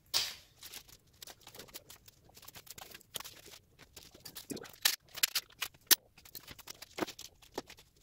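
Scattered light clicks, taps and rustles, with a few sharper knocks near the middle and again about a second before the end: someone moving about a workshop and handling small parts.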